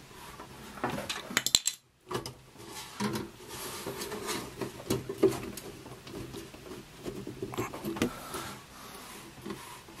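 Hands handling a small metal computer case: rubbing and scraping with scattered light clicks and knocks, and a brief drop to near silence just before two seconds in.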